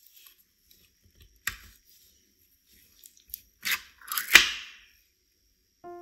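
Ring-pull lid of a tin can of condensed milk being opened: a few sharp clicks as the tab is worked, then the lid cracking and tearing free, loudest about four and a half seconds in.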